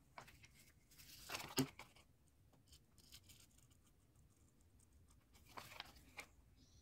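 Faint rustling of paper being handled, with the loudest rustle about a second and a half in and another short one near the end.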